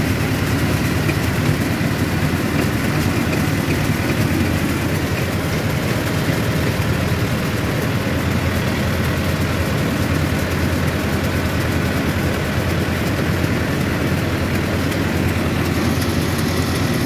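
Mahindra Arjun Novo 755 tractor's diesel engine running steadily as the tractor drives slowly, heard from the driver's seat.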